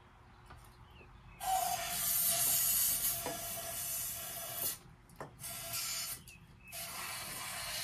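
Aerosol spray can hissing as fuel is sprayed into the left carburetor mouth of a two-stroke snowmobile engine to help it start: one long spray of about three seconds, then a brief one and two shorter sprays, with a faint whistle from the nozzle. The can is spraying mostly air, with not much fluid coming out.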